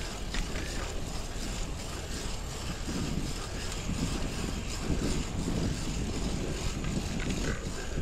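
Wind rumbling on the microphone with the steady rolling noise of a bicycle being ridden.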